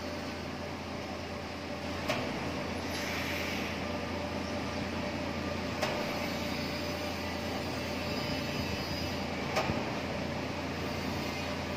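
Mobile crane's engine running steadily while it lifts a steel truss, with three short clicks spaced a few seconds apart.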